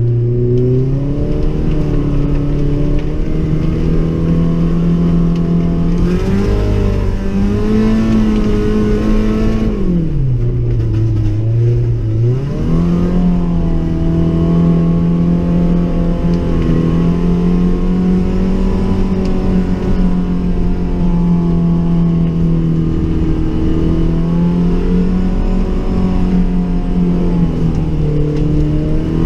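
1998 Chevrolet Tracker's four-cylinder engine pulling the SUV along, heard from inside the cabin. The pitch holds fairly steady, drops lower about ten seconds in and climbs back up a couple of seconds later.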